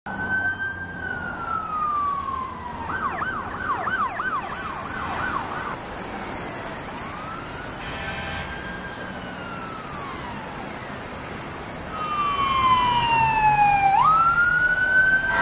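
Emergency vehicle sirens: a slow falling wail, then a fast yelp of about three sweeps a second, then slow rising and falling wails. Traffic noise grows louder near the end.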